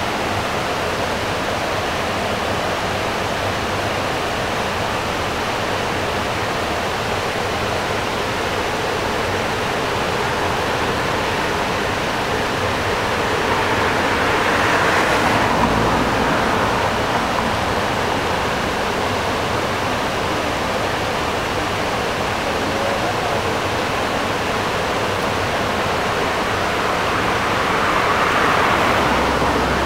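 River water rushing over a stone weir: a steady noise that swells louder twice, around the middle and near the end.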